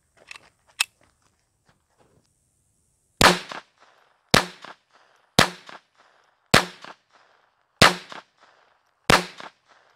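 .22 LR firearm fired six times at a steady pace, about one shot every second and a bit, starting about three seconds in. Each is a sharp crack with a short echo after it.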